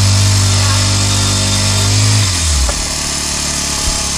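A small petrol engine running steadily, then shut off about two seconds in, its note falling as it winds down to a stop. A steady background hiss continues after.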